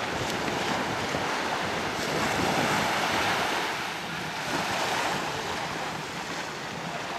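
Small waves washing onto the beach, with wind buffeting the microphone.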